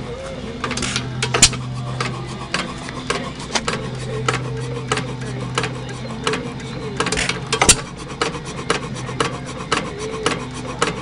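1 hp IHC Famous hit-and-miss engine running: a quick, even clicking of its valve gear and ignition as it coasts, about three clicks a second. Two much louder sharp reports, about a second and a half in and near eight seconds in, are firing strokes.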